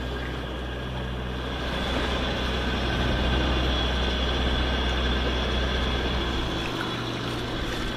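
Sailboat's inboard auxiliary engine running steadily under way, a low drone with the hiss of water and wind around the hull. About two-thirds of the way in the deepest part of the drone eases off while the engine keeps running.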